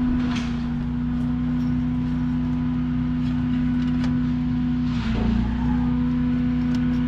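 A machine running with a steady, even low hum, with brief rustling of hands at work on it near the start and about five seconds in.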